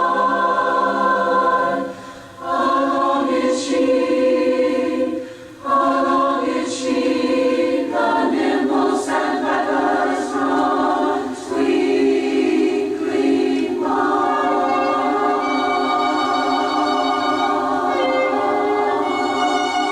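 A choir singing sustained chords, played back from a Scotch Scream'R Type I normal-bias cassette tape. The singing breaks briefly twice in the first six seconds, and higher parts join about fourteen seconds in.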